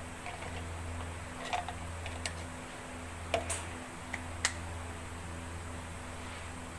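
A handful of short, sharp clicks and light taps, about six between the first and fifth second, over a steady low hum.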